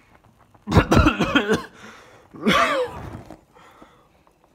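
A man's voice making two short wordless vocal sounds, about a second in and again near the middle; the second slides up and then down in pitch.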